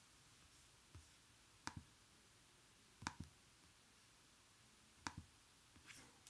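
Faint computer clicks, single and doubled, about one a second, made while working the on-screen menus, over near silence.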